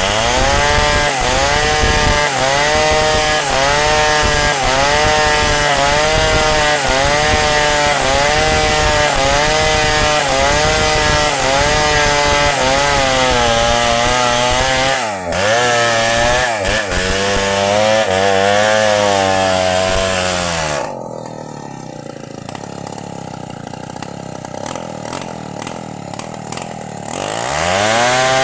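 Two-stroke chainsaw cutting wood at full throttle, its engine pitch dipping and recovering about once a second under the cut. About 21 seconds in it drops back to idle, then revs up again near the end.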